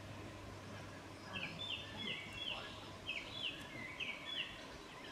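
A bird chirping in quick runs of short, high notes, starting about a second in, over faint background noise.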